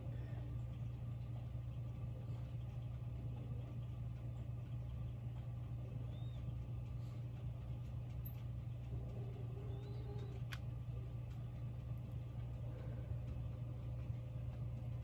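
A steady low hum, as of a motor or appliance running, with a few faint clicks over it.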